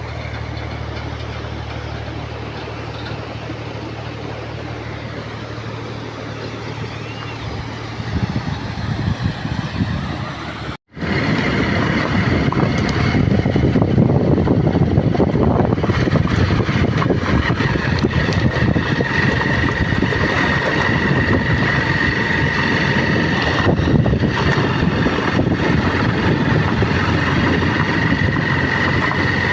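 A vehicle engine running steadily with a low hum. It stops suddenly about 11 seconds in and gives way to a louder, steady rushing noise with a thin high whine.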